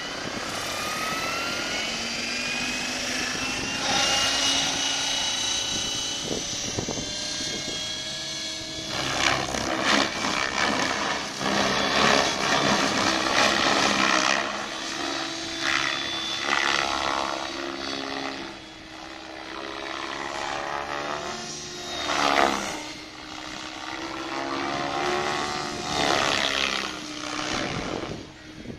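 Radio-controlled helicopter in flight: a high motor-and-rotor whine rises over the first few seconds as it spools up, then holds, shifting in pitch and loudness as the helicopter manoeuvres.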